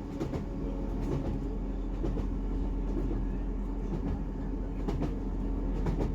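Class 158 Sprinter diesel multiple unit running along the line, heard from inside the carriage. A steady low drone of engine and wheel-on-rail noise carries scattered sharp clicks.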